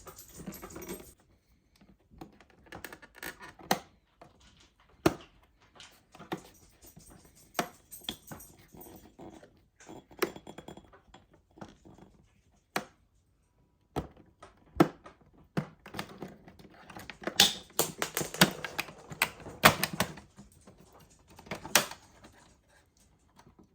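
Irregular clicks, taps and knocks of hard plastic as the clipped-in parts of an LG refrigerator's ice and water dispenser are pried and worked loose by hand. The clicking comes in scattered bursts and is busiest late on.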